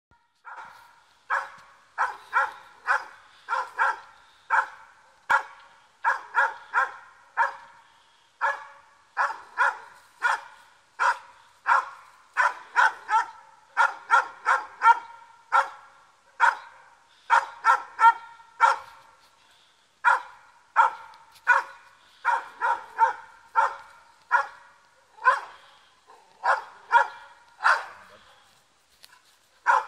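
Catahoula leopard dog barking over and over in quick runs with short pauses, baying a wild boar.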